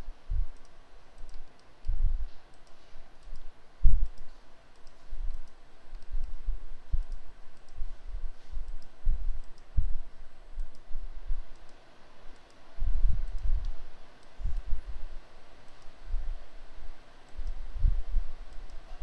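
Computer mouse clicked repeatedly at an irregular pace while selecting items on screen, with low thuds among the clicks.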